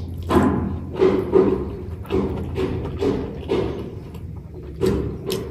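Close-miked chewing of a mouthful of food, wet mouth noises repeating about two to three times a second, with a short lull near the end.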